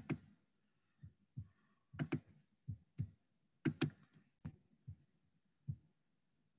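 Computer mouse clicks: about a dozen short, sharp clicks at uneven spacing, several of them in quick pairs.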